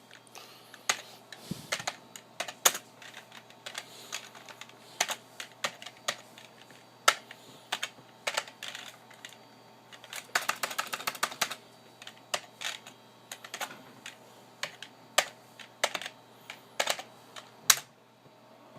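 Typing on a computer keyboard: irregular keystrokes with a fast run of keys about ten seconds in and a few louder single presses.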